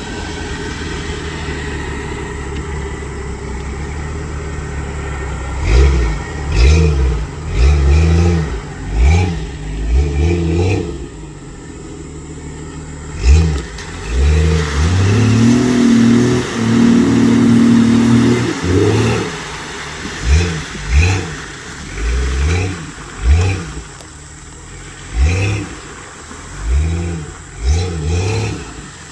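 Off-road vehicle's engine driving through mud. It runs steadily for the first few seconds, then is revved hard again and again, the pitch rising and falling about once a second, with a sustained higher whine in the middle.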